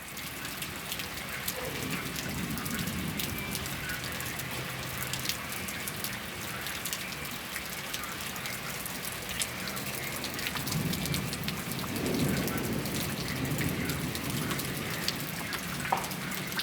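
Heavy rain pelting down on hard surfaces in a thunderstorm, a dense patter of drops, with a low rumble swelling up twice.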